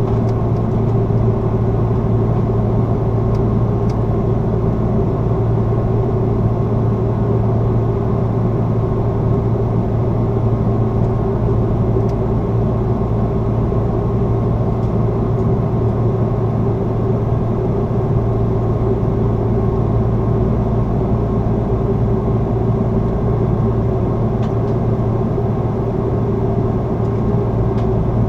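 Airbus A330-300 cabin noise from inside the cabin during flight: a steady drone of the jet engines and rushing airflow, with a low hum and a couple of steady tones, unchanging throughout.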